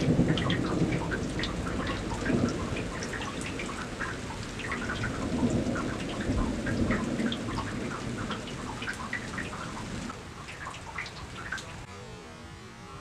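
Thunder rumbling and slowly dying away over about ten seconds, with raindrops pattering close by.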